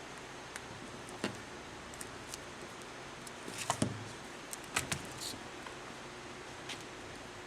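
Rubber vent weatherstrip being pressed and worked into the metal channel of a vent window frame by hand and with a tool: scattered light clicks and taps, busiest about halfway through, over a steady hiss.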